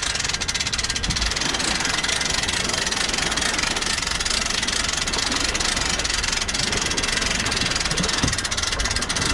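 Hand-cranked boat trailer winch being wound, its ratchet clicking fast and steadily as the strap draws the aluminium boat up onto the trailer.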